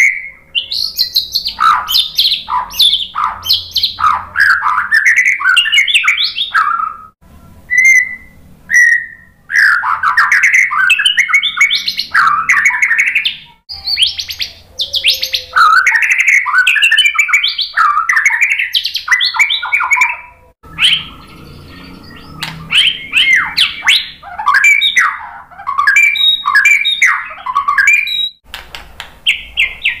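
White-rumped shama (murai batu) singing loudly in long runs of fast, varied whistled phrases that sweep up and down in pitch. There are brief pauses about a third of the way in and about two-thirds of the way in, where only a few single notes are heard.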